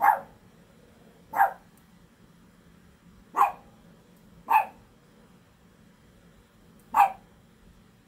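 A dog barking: five single, short, sharp barks spaced one to two and a half seconds apart.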